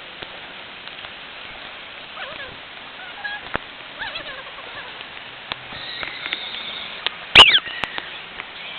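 A dog whining in short cries that rise and fall in pitch, with one loud, sharp yelp that falls in pitch about seven seconds in, over a steady hiss of rain.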